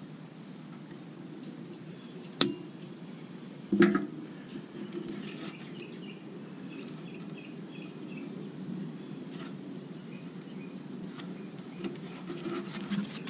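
Two sharp metallic knocks, about two and a half and four seconds in, as a shock absorber is handled and worked onto its mounting post on a Willys truck's steel frame, with a few lighter clicks near the end, over a steady low hum and a faint high whine.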